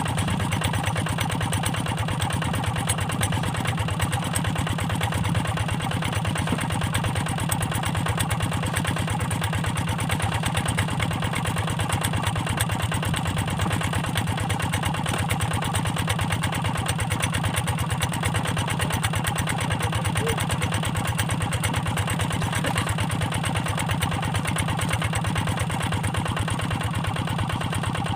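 Single-cylinder diesel engine of a Kubota Quick G1000 hand tractor running steadily at an even speed, with a rapid, even chugging.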